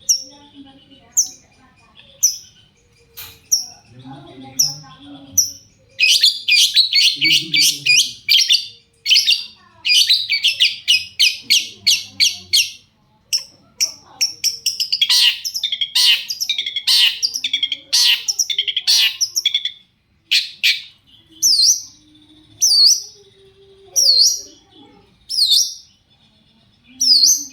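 Long-tailed shrike (cendet) in full song: sharp, high whistled notes falling in pitch, about one a second, break into a fast, dense chattering song for around fourteen seconds, then return to the single falling notes.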